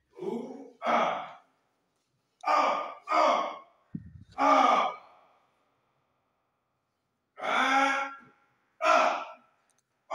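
Voice actor's short fight efforts: grunts and gasps recorded close on a microphone, seven in all, mostly in quick pairs with pauses between, and a brief dull low bump about four seconds in.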